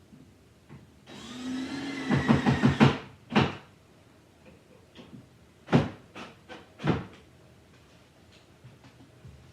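A small power drill spins up and runs for about two seconds, pulsing rapidly near the end, as when driving a screw. Several sharp knocks and clicks of wood and tools being handled follow.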